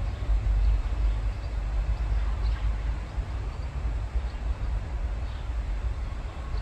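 Wind buffeting the microphone as an uneven low rumble, with a few faint, short bird chirps.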